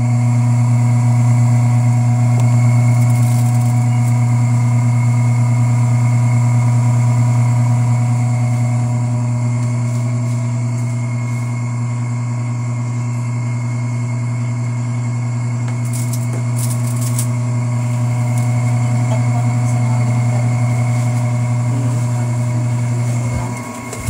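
Top-loading automatic washing machine spinning its tub: a loud, steady motor hum with a few fainter higher steady tones, the machine running again on its replaced controller board. The hum drops away near the end.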